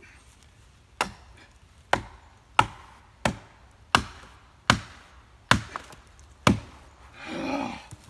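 Splitting maul hammering a felling wedge into the cut of an oak trunk: eight sharp, hard strikes, about one every 0.7 s, driving the wedge to lift the tree off a pinched chainsaw bar. A brief grunt-like vocal sound follows near the end.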